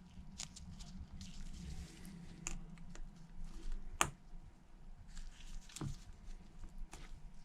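Light, scattered clicks and taps of small tools and phone parts being handled during an iPhone screen replacement, with a sharper click about four seconds in.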